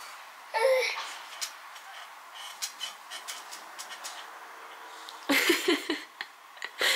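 Short, soft voice sounds: one brief sound about half a second in and a few more close together about five seconds in, with light rustling and clicks between them.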